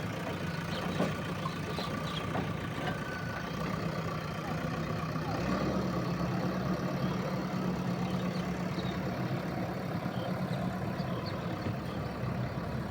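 JCB 3DX backhoe loader's diesel engine running steadily at a low, even speed.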